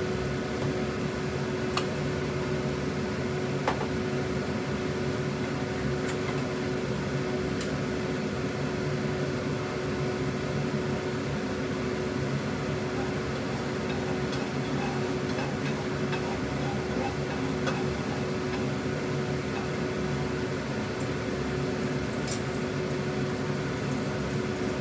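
Steady hum of a kitchen fan, with one constant tone, and a few faint light clicks scattered through it.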